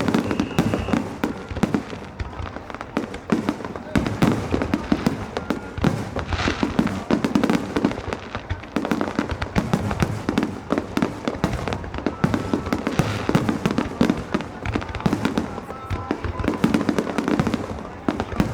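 Fireworks bursting in rapid, unbroken succession, a dense barrage of bangs and crackles.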